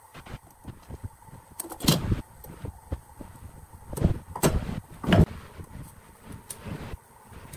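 Knocks and clatter of metal hand tools and clamps being handled against wood on a workbench, with the loudest knocks about two, four, four and a half and five seconds in.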